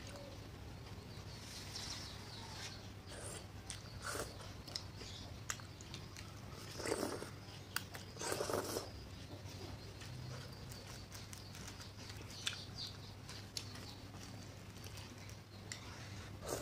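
Close-up eating sounds of a child slurping noodles from spicy seblak soup and chewing, with scattered small clicks and two longer slurps about seven and eight and a half seconds in. A steady low hum runs underneath.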